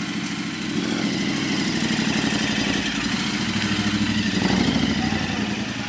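Royal Enfield Interceptor 650's parallel-twin engine idling, loud and evenly pulsing, through an AEW TE102 stainless megaphone exhaust with its dB killer removed, so the pipe runs straight through with no baffles. It swells slightly about four and a half seconds in.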